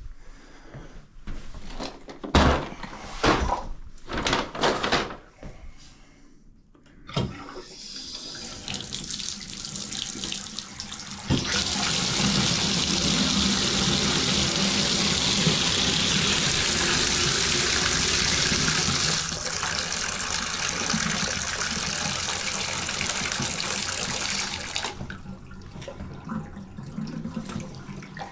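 Shower valve with a newly fitted cartridge being tested: a few knocks as the handle is worked, then water starts running and grows much louder after about four seconds. It runs steadily and shuts off a few seconds before the end.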